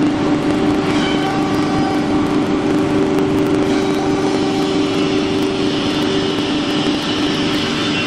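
Wood CNC router running: a steady whine of several held tones over a noisy hum, with a brighter, higher hiss joining about halfway through.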